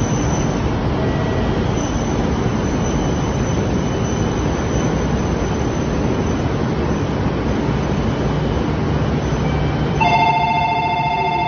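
Steady hum and noise of a shinkansen standing at the platform. About ten seconds in, an electronic departure bell starts a continuous warbling ring, signalling the train is about to leave.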